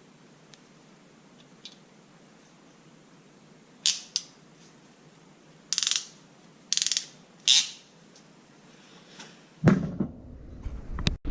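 Tool noise while fastening a pipe clamp: two sharp clicks, then three short rattling bursts about a second apart, and a loud thump near the end.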